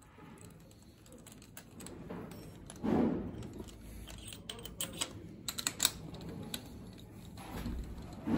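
Light metallic clicks and rattles of a compression tester's screw-in adapter and hose being handled at the cylinder head of a VW CFFB 2.0 TDI engine, with a louder bump about three seconds in and a quick run of clicks around the middle.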